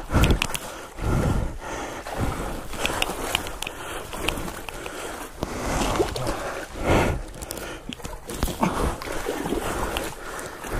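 Creek water splashing and sloshing around a Kawasaki KLR 650 as it is pushed and hauled through the water by hand, in uneven surges, with grunts of effort.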